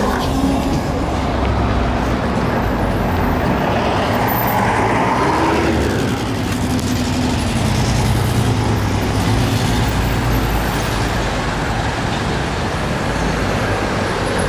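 Road traffic on a city street: bus and car engines running as vehicles pass.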